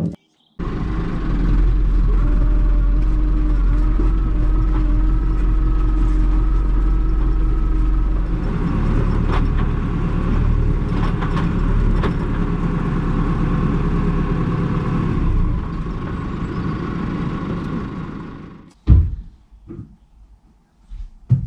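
Massey Ferguson diesel tractor engine running, heard from inside the cab, its note shifting lower about eight seconds in and again later, then dying away as it is shut off a few seconds before the end. A sharp knock follows.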